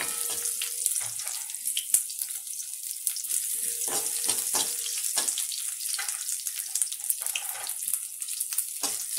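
Crushed garlic cloves, skins on, sizzling in hot oil with red chillies and tempering spices in a kadai: a steady high hiss with fine crackles, while a steel spoon stirs them.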